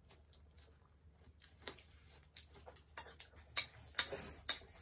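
Metal fork and spoon clicking and scraping on a ceramic plate as food is scooped up. The first second is quiet, then come scattered light ticks that grow more frequent in the second half.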